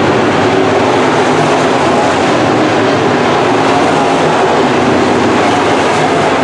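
Engines of several IMCA Modified dirt-track race cars, small-block V8s, running hard in a race. They make a loud, steady mix of overlapping engine tones that waver in pitch.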